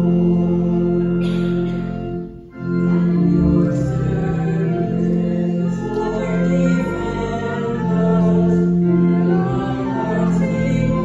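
Congregation singing a hymn in unison over sustained organ accompaniment, with a short break between phrases about two seconds in.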